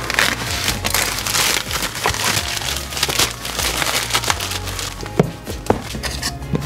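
Plastic postal mailer crinkling and rustling as it is cut open and a boxed item is pulled out of it, with a couple of sharp knocks near the end.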